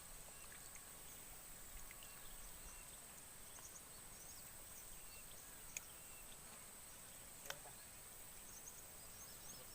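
Quiet outdoor ambience: a faint hiss with a steady thin high tone and scattered faint high chirps, broken by two sharp clicks a little past halfway, about a second and a half apart.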